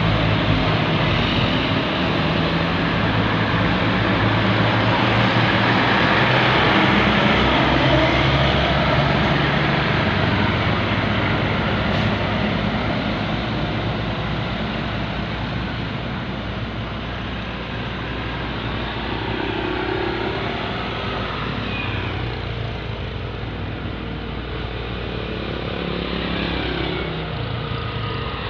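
Tour bus engines passing close by amid road traffic, loudest in the first ten seconds and easing off after that.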